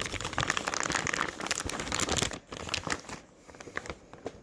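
Plastic vacuum-sealer bag crinkling as it is handled and positioned, busy for about two seconds, then quieter scattered crackles.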